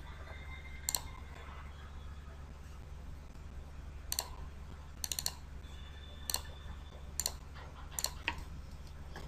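Computer mouse button clicking: about nine short, sharp clicks spaced unevenly, including a quick run of three about five seconds in, over a steady low hum.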